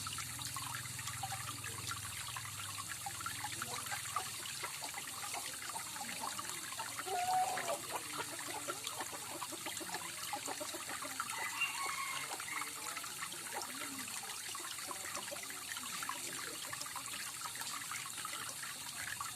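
Water trickling and splashing steadily down a small artificial garden waterfall. A brief chirp stands out about seven seconds in, with fainter ones around twelve seconds.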